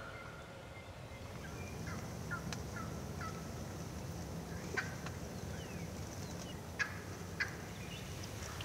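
Wild turkey gobbling over a steady low rumble, with a few short chirps a couple of seconds in and three sharp clicks in the second half.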